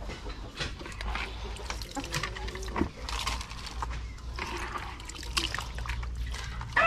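Wet feed mash scooped by hand from a plastic bucket and dropped into a chicken feeder trough, with soft wet pattering and scattered short ticks and taps as hens feed.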